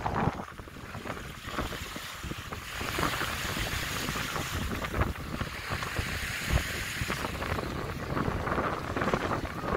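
Small sea waves washing up on a sandy shore, with wind buffeting the microphone.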